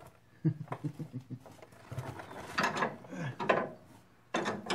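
Ratchet wrench clicking in short runs of quick strokes as a bolt is worked, with louder metal scraping and clanks in the second half.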